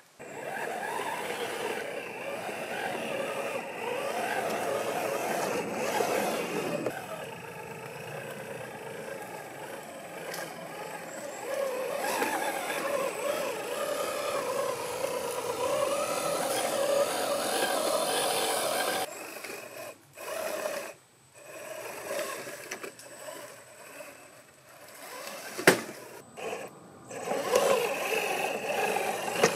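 Whine of a 1/8-scale RC crawler's 550 brushed motor and geared drivetrain, its pitch rising and falling with the throttle as the truck crawls over rock. After about 19 seconds it comes in short bursts with pauses, and there is one sharp knock later on.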